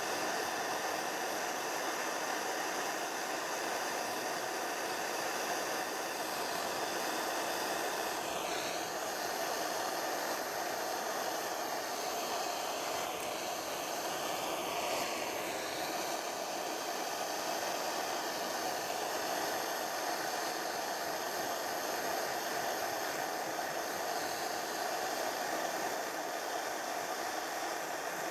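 Gas blowlamp flame burning with a steady rushing hiss, heating a joint for silver soldering.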